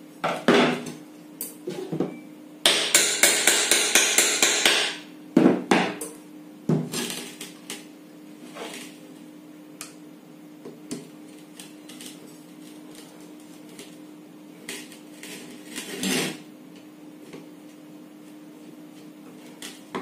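Screwdriver tightening the cover screws on a ceiling fan's metal motor housing: sharp metallic clicks and knocks, with a dense run of rapid rattling clicks about three seconds in that lasts about two seconds. A faint steady hum runs underneath.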